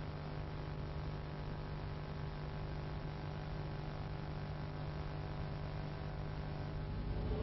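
Steady low electrical hum over a background hiss; near the end the hum drops out as a louder sound begins to swell in.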